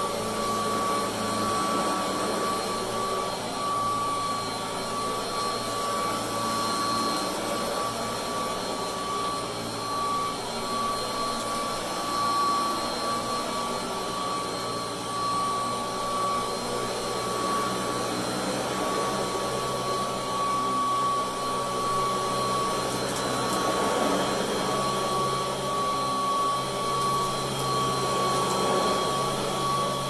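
Vintage Royal Model 608 commercial upright vacuum cleaner running steadily with a high-pitched whine, as it is pushed back and forth over shag carpet.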